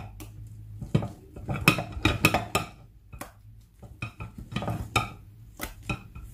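Kitchen utensils knocking and clinking against bowls and dishes in irregular strokes, some of the clinks ringing briefly, over a faint low hum.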